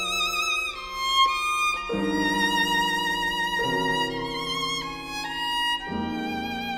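Background music: a violin playing a slow melody with vibrato over lower sustained accompaniment.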